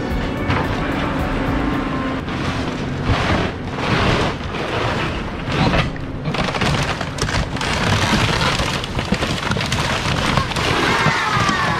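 Caterpillar excavator demolishing a wooden A-frame cottage, with repeated crashing and splintering of timber and siding as the front wall is pushed in. Near the end there is a drawn-out falling creak as the glass doors and wall frame give way.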